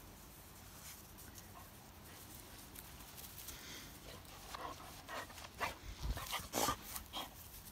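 A dog giving a quick run of short, high calls in the second half, loudest near the end, with a low thump about six seconds in.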